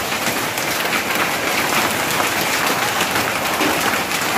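Hailstorm with rain: hailstones and rain pelting down in a dense, steady clatter of many small hits.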